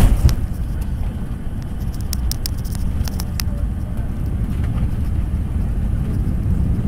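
Jet airliner on its landing roll, heard from a window seat over the wing: a thump right at the start, then a steady low roar of engines and runway rumble that grows gradually louder, with a few light rattles partway through. The wing's spoilers are raised, so the aircraft is braking after touchdown.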